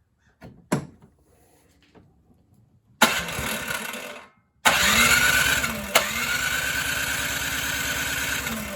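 Snowblower's electric starter cranking the four-cycle engine in two loud bursts, a short one about three seconds in and a longer one after a brief pause, with a steady whine over quick even pulses. The engine turns over but never fires: a carburetor gummed up by stale fuel, as the owner suspects.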